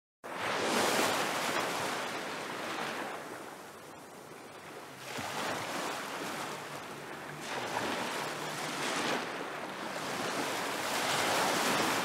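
Sea waves washing in: an even rushing of water that swells and falls back every few seconds.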